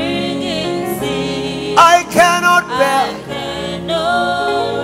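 Live gospel worship music: a woman sings over the band's held chords, with choir voices.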